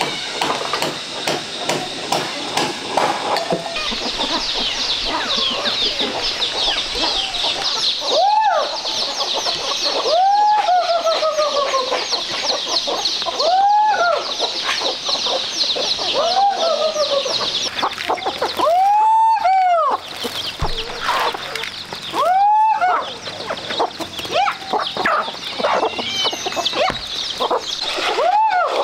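Chickens clucking, with drawn-out rising-and-falling calls every two to three seconds, over a dense high-pitched chirring chorus in the background.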